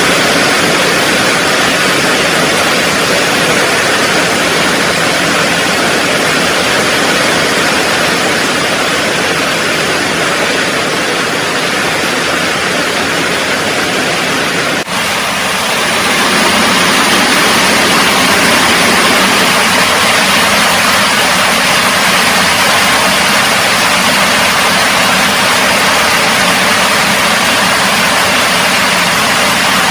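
Heavy rain falling, a steady loud hiss; about halfway through it dips for a moment and then goes on a little louder.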